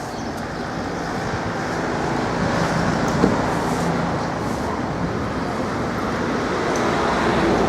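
Road traffic noise: a steady rumble of passing motor vehicles.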